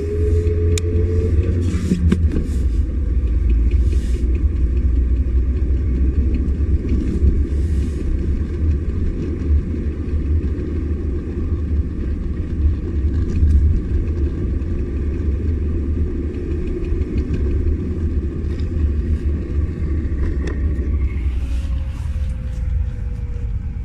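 Volkswagen Passat B3 driving with a steady low rumble and scattered sharp knocks from the left front driveshaft under acceleration. The knocks come from a worn left inner CV joint whose boot had torn. The engine note rises in the first second or so and falls gently near the end.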